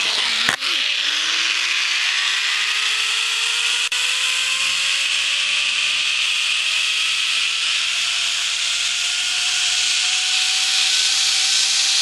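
Zipline trolley running along a steel cable: a steady loud hiss with a whine that rises slowly in pitch, after a sharp knock just after the start.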